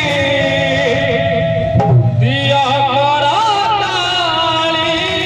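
Kirtan: a devotional song sung into a microphone, the voice wavering over steady held instrumental tones. Briefly, about two seconds in, the upper held tones drop out while a lower one sounds strongly.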